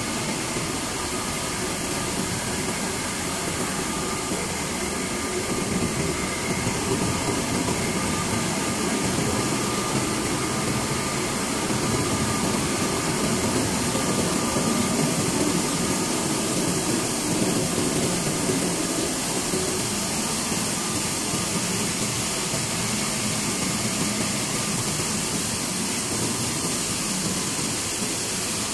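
Rice mill machinery running steadily: a continuous mechanical drone mixed with the hiss of grain flowing, with a few faint steady whines in it.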